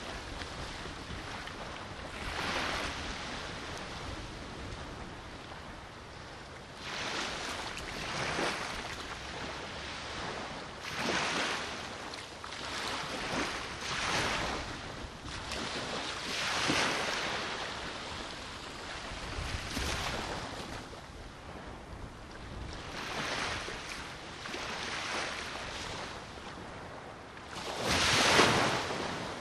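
Small sea waves breaking and washing on the shore every few seconds, the loudest near the end, with wind buffeting the microphone.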